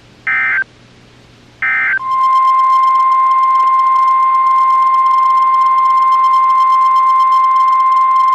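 Two short bursts of EAS/SAME digital data tones, the end-of-message code that closes a NOAA Weather Radio warning. About two seconds in, the single steady 1050 Hz NOAA Weather Radio warning alarm tone starts and holds.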